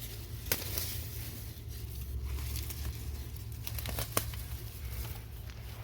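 Garden weeds and plant stems rustling and tearing as they are handled, with scattered sharp snaps and crackles over a steady low rumble.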